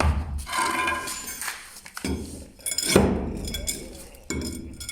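Loose slabs of thin cement-sand floor screed being pried up with a metal pry bar, a few hard clattering knocks with some clinking, the loudest about three seconds in. The screed comes away in pieces because it is not bonded to the dusty base beneath.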